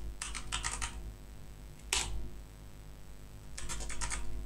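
Computer keyboard typing: a quick run of keystrokes within the first second, a single louder click about two seconds in, and another run of keystrokes near the end.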